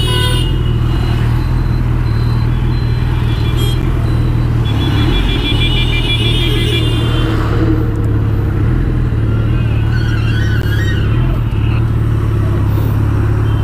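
Suzuki Hayabusa's inline-four engine idling steadily among idling street traffic at a standstill. A vehicle horn sounds for about two seconds around the middle.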